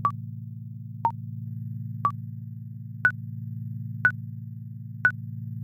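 Countdown timer sound effect: six short electronic beeps, one each second, the last three higher in pitch, over a steady low synthesized drone.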